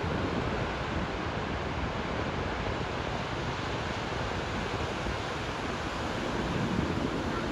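Ocean surf breaking and washing up the beach, a steady rush.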